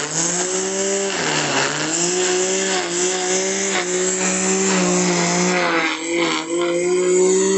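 Tramontina AP1000T corded electric grass trimmer running at full speed, its nylon line cutting grass with a steady motor whine over a hiss of cutting. The whine dips briefly in pitch about a second and a half in, then holds steady.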